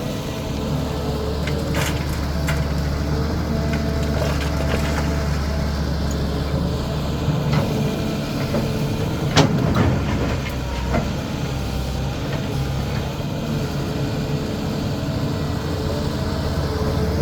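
CAT 320D excavator's diesel engine running steadily under work, with several sharp knocks mixed in, the loudest a little past halfway through.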